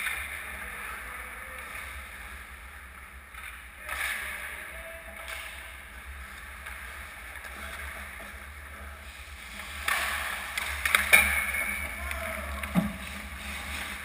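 Ice hockey skates scraping and swishing on the rink over a steady low hum. Toward the end, a quick run of sharp stick-and-puck clacks, then a dull thump.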